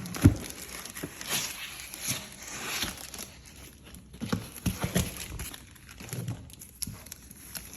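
Packaging being handled during an unboxing: rustling of wrapping and cardboard with a few scattered knocks and thumps.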